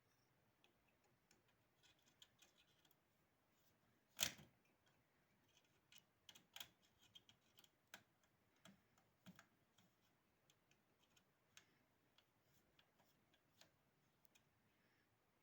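Faint, scattered clicks and light taps of small hard parts being handled, with one sharper knock about four seconds in and a cluster of quicker clicks a little after.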